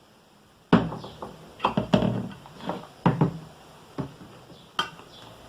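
Homemade slime being kneaded and handled in its bowl: a sudden knock, then a run of irregular short squelches and knocks, with two more near the end.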